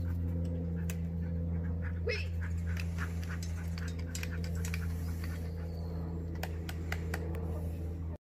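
A steady low mechanical hum that holds one pitch throughout, with scattered light clicks and ticks over it. It cuts off suddenly right at the end.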